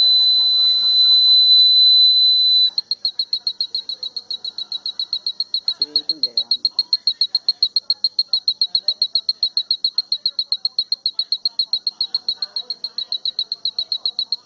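Fire alarm circuit's buzzer sounding: a loud, steady high-pitched tone that switches, a few seconds in, to rapid, even beeping several times a second.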